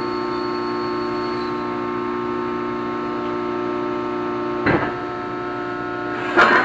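Steady hum of running shop machinery, several even tones held together, with a high whine that stops about a second and a half in. A short sharp metallic sound comes near the end of the fifth second, and a louder one right at the end.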